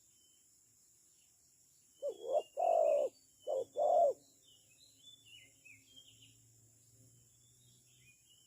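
Spotted dove cooing: four low notes in two pairs, each pair a short note followed by a longer one, about two seconds in. Faint chirps of small birds and a steady high hiss sound throughout.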